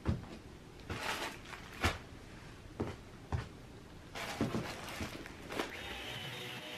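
Handling noises: a string of sharp knocks and thumps with rustling in between. Near the end a cordless stick vacuum starts and runs with a steady whirr.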